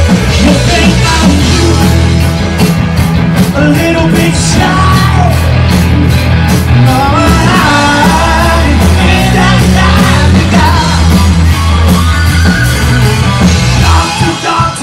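Live rock band playing loud: electric guitars, bass guitar and drums, with a male lead singer. The bass drops out briefly near the end.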